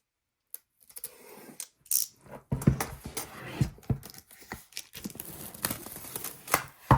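Packaging being cut open and pulled apart by hand: a crinkling, tearing rustle with scattered clicks and knocks, starting about a second in and busier from the middle on.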